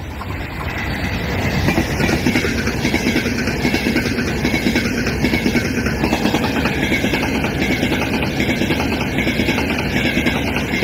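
Frecciarossa high-speed electric train passing at speed, a steady rush with a fast, continuous clatter of wheels on the rails.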